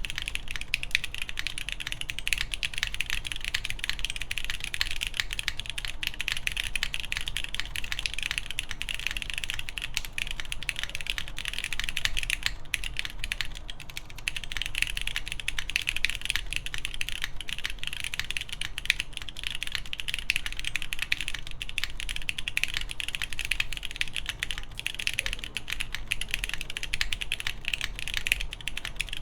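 Continuous fast typing on a mechanical keyboard with lubed Cherry MX2A Brown tactile switches, GMK keycaps and a polycarbonate plate: a dense stream of key clacks with occasional louder strokes, easing briefly about halfway through.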